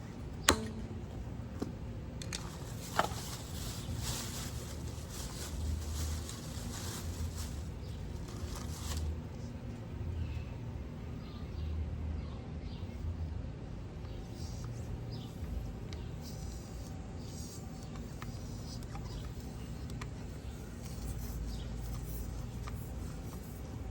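Low background noise with a few sharp clicks and knocks from handling, the loudest just after the start and about three seconds in, and a stretch of light scraping hiss in the first half.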